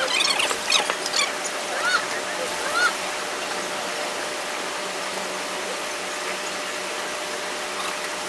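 Milk squirting from a cow's teat into a pail during hand-milking, a steady hissing spray. A few short chirps sound over it in the first three seconds.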